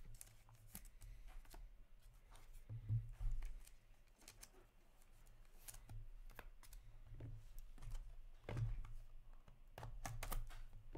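Trading cards and plastic card holders being handled close to the microphone: scattered light clicks and short rustles at an irregular pace, over a steady low hum.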